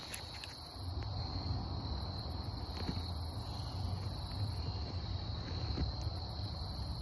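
Insects droning in a steady high-pitched chorus, with a low rumble underneath from about a second in.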